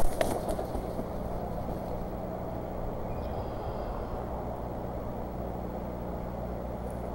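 A brief, loud rush of an adult bald eagle's wing brushing close to the nest-cam microphone, then a steady low rumble with a faint high chirp about three seconds in.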